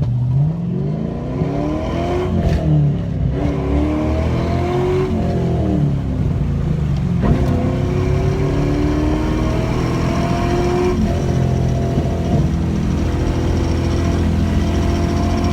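LS1 V8 in a BMW 318ti accelerating hard, revs climbing and dropping back a few times, then held high and fairly steady from about halfway on.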